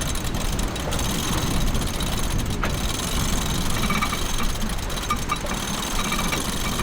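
A boat's motor running close by with a dense, rapid rattle; faint steady high tones join about halfway through.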